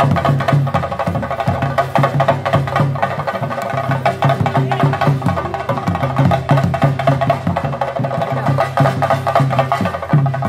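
Fast, unbroken drumming on Kerala chenda drums, the beat that accompanies a Theyyam performance, with dense rapid stick strokes.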